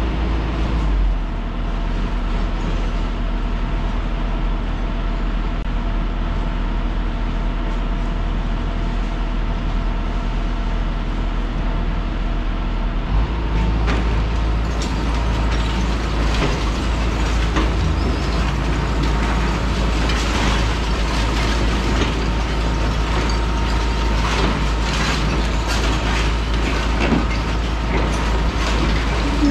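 Hitachi ZX210-6 demolition excavator's diesel engine running steadily, working harder from about halfway through. At that point the cracking and clattering of breaking masonry and falling rubble begins under the demolition jaw, and it goes on to the end.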